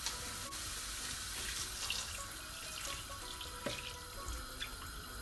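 Lukewarm water poured steadily from a jug into a pan of red peas and pig tails, splashing over the beans and meat, with a few small clicks.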